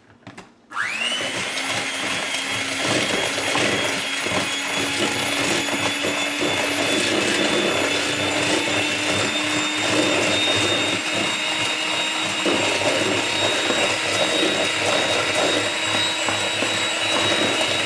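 Electric hand mixer switched on less than a second in, its whine rising briefly as the motor comes up to speed, then running steadily as the beaters cream soft butter and sugar. It cuts off near the end.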